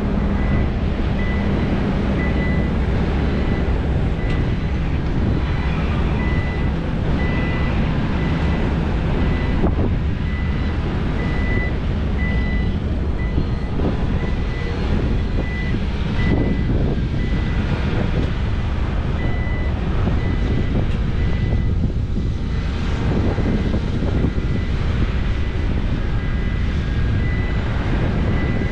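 Diesel engine of a SANY SY500 excavator running hard under load while loading trucks, with a reversing alarm beeping at an even pace over it.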